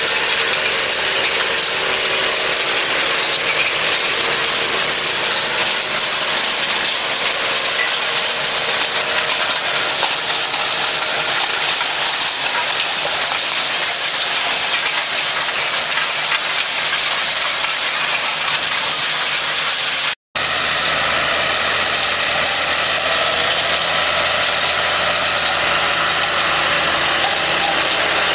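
Tractor engine running steadily under load while pulling a chisel plough through stony soil, under a constant loud hiss. The sound cuts out for a moment about twenty seconds in.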